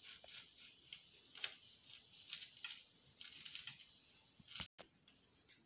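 Knife sawing through a toasted bread sandwich: faint, irregular crisp scrapes and crunches of the crust.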